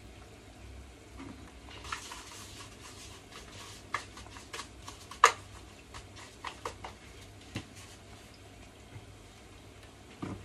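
Kitchenware being handled: a string of short clinks and knocks, the loudest a single sharp ringing clink about halfway, with a brief hiss of frying from the pan before them.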